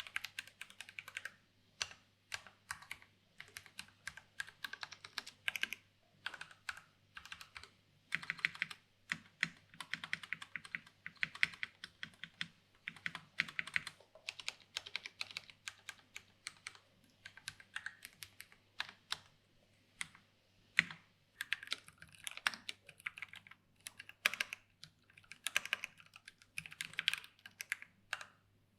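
Typing on a LOGA x Carnival mechanical keyboard with tactile Gateron Brown switches, PBT keycaps and an aluminium case. The keystrokes come in quick runs broken by short pauses.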